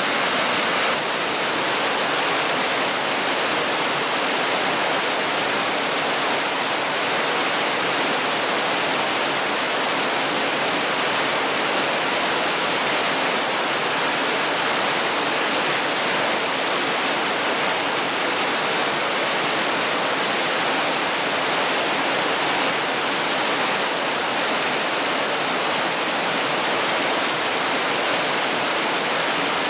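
Mountain stream rushing steadily, an even, unbroken sound of flowing water.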